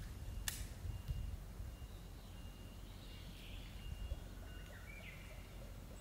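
Faint outdoor ambience: a bird calling with short, high, repeated thin notes over a low rumble, with one sharp click about half a second in.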